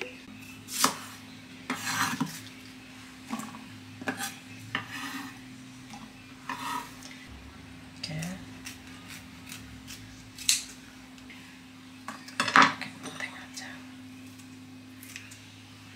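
Kitchen scissors snipping green chillies and spring onion stalks over a bamboo cutting board, with scattered clicks and knocks of the blades and produce on the board. A steady low hum runs underneath.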